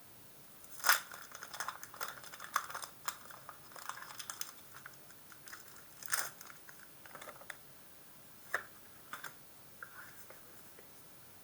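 A Pokémon trading-card booster pack being handled and opened: the foil wrapper crinkles and the cards click and rub against each other in irregular short crackles, the loudest about a second in and about six seconds in.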